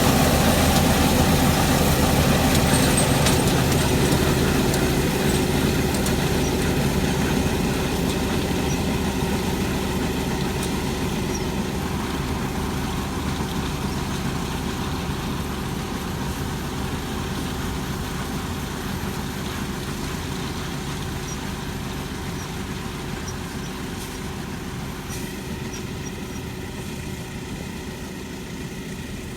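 Farm machinery's diesel engine running steadily, growing gradually fainter throughout.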